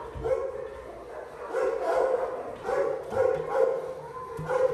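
Puppy barking and yipping in a series of short, repeated barks.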